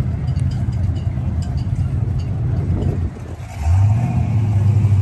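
Fox-body Ford Mustang engine running at idle with a deep exhaust rumble. It drops away briefly about three seconds in, then comes back louder and steadier as the car rolls by close.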